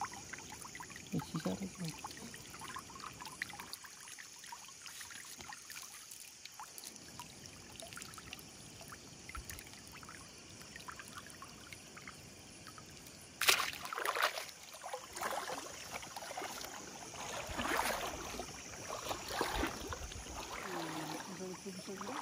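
Water dripping and trickling off a wet cast net held up out of the water. About halfway through comes a sudden loud noise, followed by irregular rustling and splashing.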